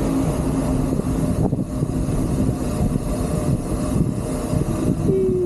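Wind rushing over the microphone of a camera on a moving bicycle: a loud, steady low rumble. A short tone that falls slightly in pitch comes in just before the end.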